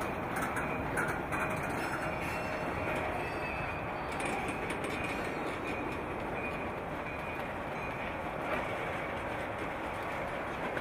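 Freight train of covered hopper cars rolling slowly past, with the steady noise of steel wheels on the rails.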